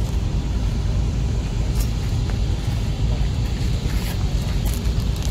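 A steady low rumble with a few faint knocks and shuffling as the speakers change places at the lectern.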